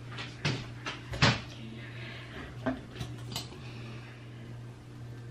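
A handful of short knocks and clicks, the loudest about a second in and a cluster near three seconds, over a steady low hum.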